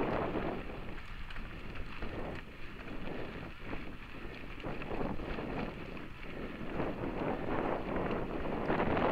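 Wind buffeting the microphone of a camera riding on a mountain bike moving along a dirt trail, mixed with the rumble of tyres on the ground. It eases through the middle and builds again near the end.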